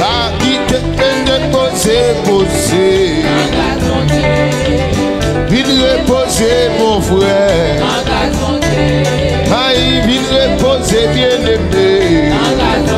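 Haitian gospel praise music: a full band with a steady beat and a gliding melody line above it.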